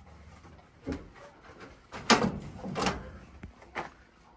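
A few separate knocks and clatters of something being handled, the loudest about two seconds in.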